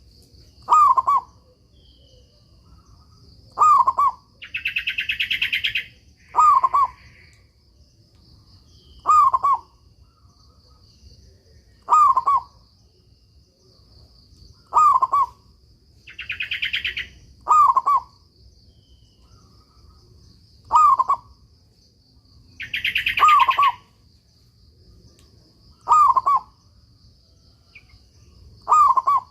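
Zebra dove (perkutut) cooing its repeated song phrase about every three seconds, each phrase a quick run of coos. Three times a higher, buzzy chatter lasting about a second joins in, over a faint steady high whine.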